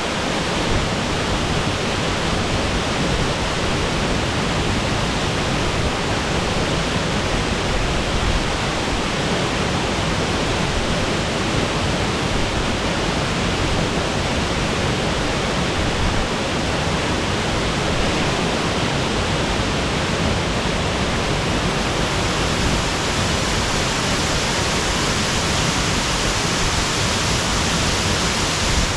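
Waterfall pouring: a steady, loud, unbroken rush of falling water.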